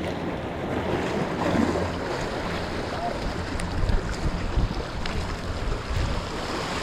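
Wind buffeting the microphone over the steady wash of surf and water.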